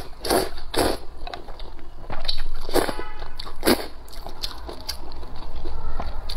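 Close-miked eating of wide flat noodles in spicy soup: several loud slurps in the first four seconds, with wet chewing in between and after.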